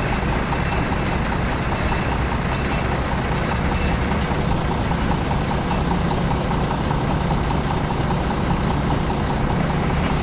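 D80 combine harvester running steadily while harvesting soybeans: a continuous engine drone under a broad high hiss of the working machinery.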